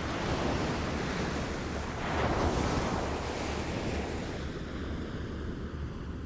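Small waves lapping on a shore: a wash of water that swells to its loudest a couple of seconds in, then slowly recedes. A steady low rumble of wind on the microphone runs underneath.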